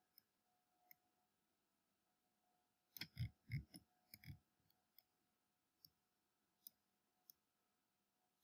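Near silence broken by faint, scattered computer mouse clicks. A short cluster of louder clicks and knocks comes about three to four seconds in.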